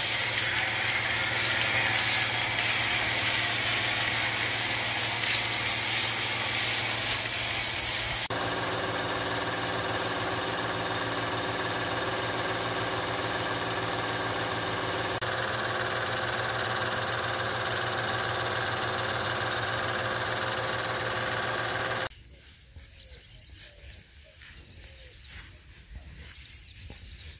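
Portable electric motor-driven sprayer hissing as it shoots a jet of soapy water onto cattle, over the steady hum of its motor. About eight seconds in the spray stops and the motor and pump run on alone with a steady whine. Near the end the sound drops suddenly to a much quieter background.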